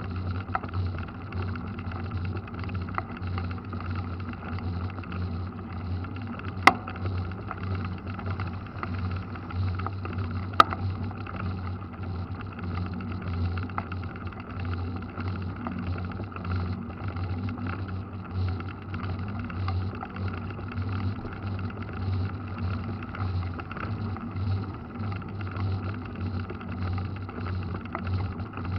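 Mountain bike rolling on a wet paved road, a steady low rumble of tyres and riding noise picked up by a camera mounted on the bike. Two sharp clicks about four seconds apart, the first about a quarter of the way in.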